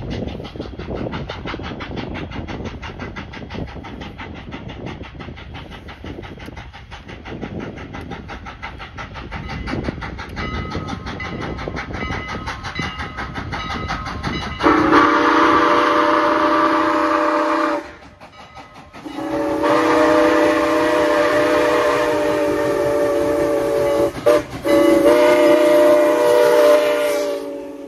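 Canadian National 89, a 2-6-0 steam locomotive, working steadily with rapid, even exhaust chuffs as it approaches, then sounding its chime steam whistle loud and close: two long blasts, a brief toot and a final long blast, the grade-crossing signal.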